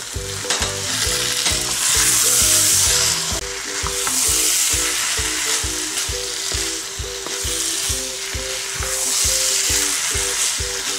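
Spiced chickpeas sizzling as they fry in masala in a non-stick wok while a wooden spatula stirs and turns them. The hiss swells with each stir, about every two seconds.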